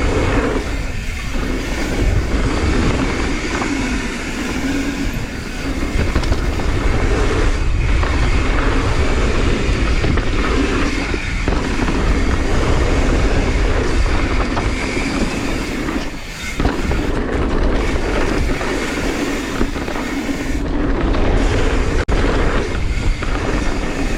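Mountain bike riding fast down a dirt jump trail: a steady, loud rumble of tyres on dirt with rattling from the bike and wind noise on the microphone, dropping away briefly a few times.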